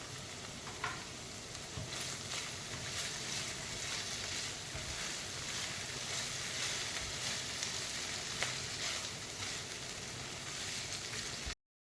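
Vegetables and Szechuan sauce sizzling as they are sautéed in a pan, with a couple of light clicks. The sizzle cuts off suddenly near the end.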